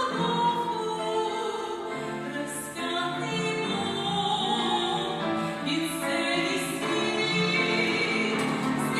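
Classical, operatic-style singing of a song, the voice holding long notes that move from one pitch to the next.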